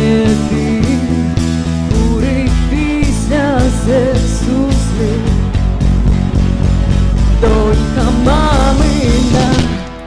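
Rock song playing: a steady drum beat with a heavy bass line that comes in about two seconds in, under a wavering melody line. The music drops away briefly near the end.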